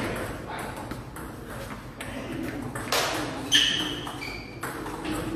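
A sharp knock about three and a half seconds in, followed by a brief high ringing, with another knock just before it.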